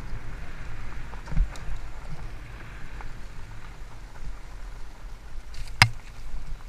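Haibike Sduro FullFat Six mountain bike riding fast down a dirt trail: tyre noise and frame rattle under a steady low rumble of wind on the camera microphone. A dull thump about one and a half seconds in, and a sharp knock near the end, the loudest sound.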